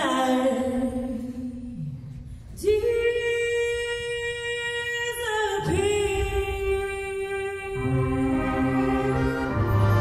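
A woman singing a slow jazz ballad through a PA, holding long notes, with a big band accompanying her; the band's sustained chords come in fuller about eight seconds in.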